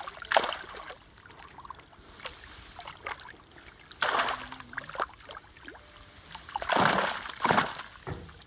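Fish thrashing in a drag net at the water's edge, splashing the surface in short bursts: one about half a second in, one about four seconds in, and two close together around seven seconds, the last pair the loudest.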